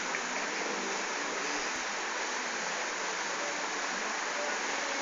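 A steady rushing hiss with faint traces of a voice underneath.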